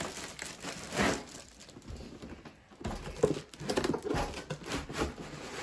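Cardboard box and plastic wrap rustling and crinkling as a plastic-wrapped camping stove is slid out of its box, with a sharper knock about a second in and irregular rustles and scrapes after.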